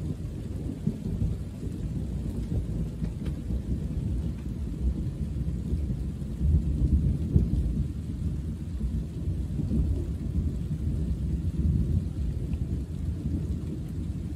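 Distant thunder rolling as a continuous low rumble, swelling about halfway through.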